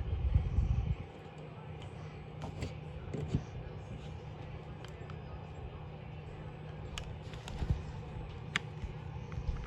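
Small objects handled close to the microphone: a low bump in the first second, then scattered light clicks and knocks over a steady low hum.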